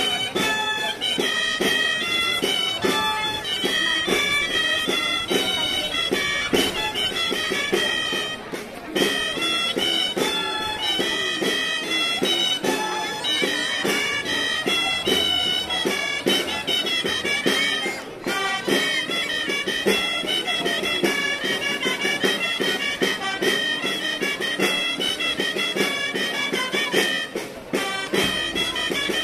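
Gralles (Catalan shawms) playing a lively giants' dance tune over a steady drum beat.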